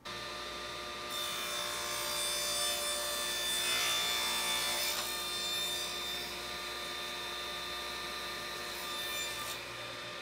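RIDGID R4512 10-inch table saw running, its tilted blade making a bevel cut through a small piece of wood fed on a sled. The cutting noise comes in about a second in, is loudest midway, and gives way to the saw running free near the end.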